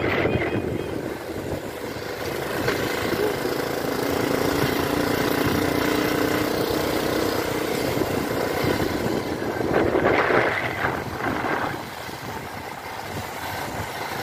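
A vehicle in motion on the road: steady engine and road rumble with wind noise, and an engine hum that comes up for a few seconds in the middle.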